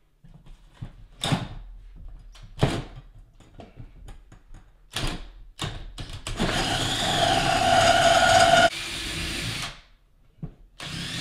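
Cordless drill driving a 6-inch hole saw and its pilot bit through a wall stud and the exterior sheathing: several short knocks and brief jolts, then a steady run of about two seconds with a wavering motor whine that drops off and stops.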